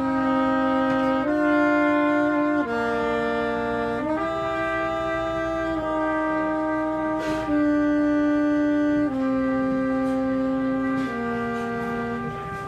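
Trumpet and saxophone playing long held notes together in two-part harmony, both changing pitch at the same moments every second or two.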